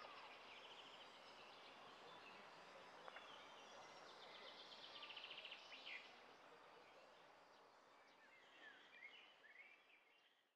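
Faint outdoor ambience with birds chirping, including two rapid trills, over a soft background hiss that fades out near the end.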